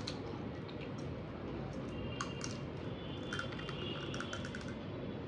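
Crisp fried puri shells cracking as fingers poke them open, with a spoon scraping and clinking in a steel bowl of filling; scattered small clicks, bunched in two clusters in the middle.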